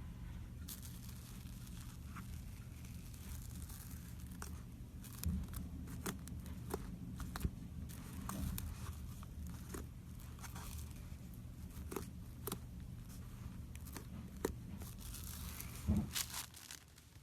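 Slime being squeezed and stretched by hand, with a steady run of small sticky crackles and pops, and a louder pop about sixteen seconds in.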